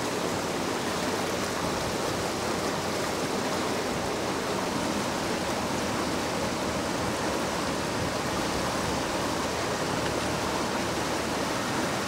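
A swollen river in flood rushing steadily, its fast current churning past a fallen tree.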